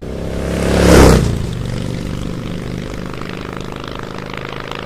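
Engine sound: a rushing swell that peaks about a second in and fades, then a steady engine drone.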